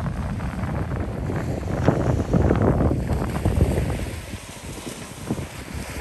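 Wind buffeting the microphone in uneven gusts, over small waves washing onto the beach; the gusts ease about four seconds in.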